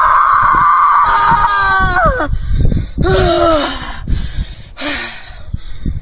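A boy screaming in imitation of a car: a long high-pitched screech that breaks into falling whoops about two seconds in, then another falling cry about a second later and a shorter one near the end.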